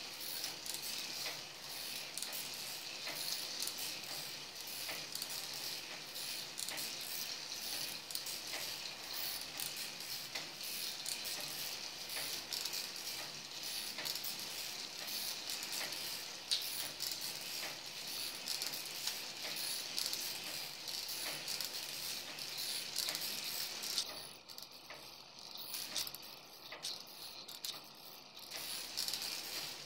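K'NEX plastic model of an octopus fairground ride running, its plastic gears and parts clicking and rattling steadily. It gets quieter for a few seconds near the end, with brief drop-outs.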